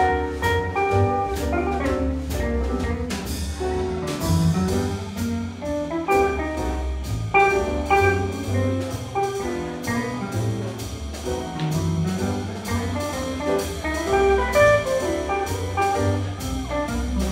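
Live swing jazz band playing: piano, archtop electric guitar, walking double bass and drum kit, with a steady swinging beat on the drums.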